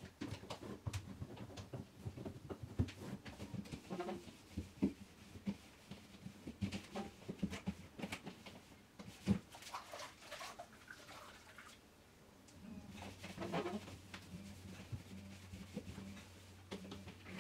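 Scattered clinks and knocks of objects being handled in a small room; a low steady hum comes in about two-thirds of the way through.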